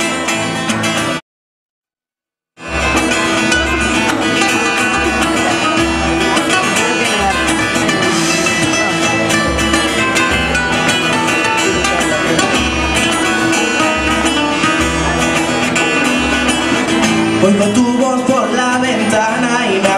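Two acoustic guitars playing a song's introduction live, strummed over a steady beat. About a second in, the sound drops out completely for roughly a second and a half, then the music comes back.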